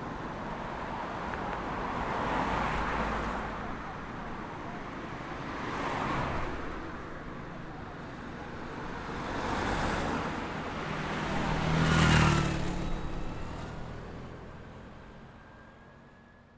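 City street traffic, with vehicles passing one after another every few seconds. The loudest pass-by, about twelve seconds in, carries a clear engine note. The traffic sound fades out near the end.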